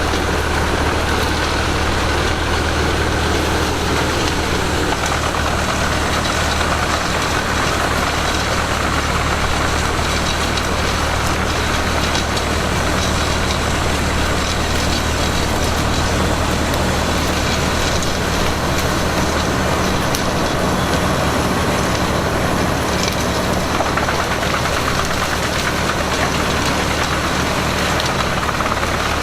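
Heavy diesel engine running steadily at a constant speed, with a deep steady hum and no change in pitch.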